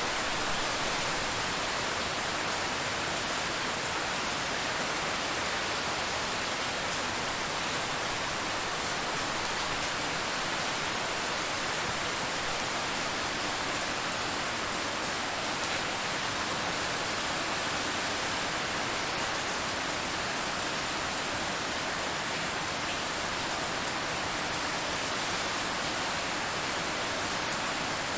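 Steady rain heard from inside a car: an even, unbroken hiss with no single drops standing out.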